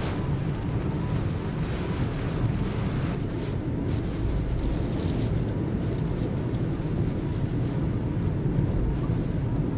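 Typhoon-force wind buffeting the microphone, a steady rumbling roar of gusts.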